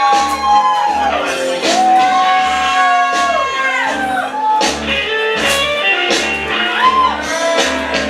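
Song with a singing voice holding long, gliding notes over a steady bass beat and cymbal hits.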